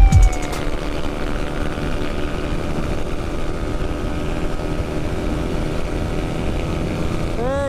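A deep boom, then a motorcycle engine running at a steady cruising speed with a constant pitch, over the rush of wind and road noise.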